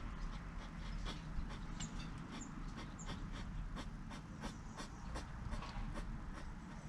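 Hedgehogs eating sunflower seeds: irregular sharp crunching clicks, a few a second, with sniffing and snuffling breaths.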